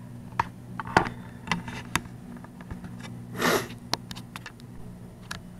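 Scattered light clicks and taps of a laptop's plastic lid and screen panel being handled and set in place, with one short breathy rustle about three and a half seconds in.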